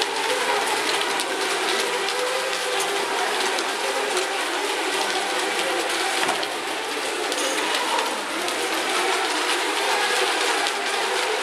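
Several ECO Mini class electric RC racing boats running together at speed. Their small motors and propellers make a steady mixed whine of several wavering tones over a hiss of churned water.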